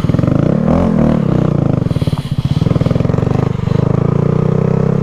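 Honda Grom's single-cylinder four-stroke engine running under load on a climb, the revs shifting about a second in and then holding fairly steady.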